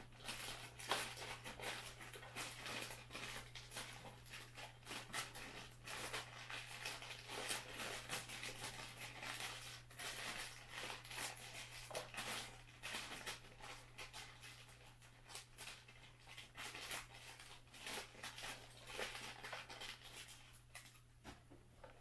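Clear plastic bag crinkling as small foam Nerf Rival balls are poured from it into a plastic blaster hopper, with many light, irregular taps and rustles of the balls dropping in. A low steady hum runs underneath.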